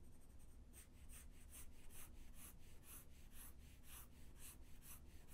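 Faint pencil strokes scratching back and forth at about four strokes a second, hatching in a dark shaded area of a drawing.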